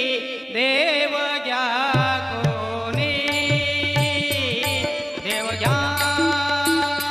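A man singing a Marathi devotional abhang (gavlan) with a wavering, ornamented melody. A drum beat comes in about two seconds in, with sharp metallic strikes keeping time over it.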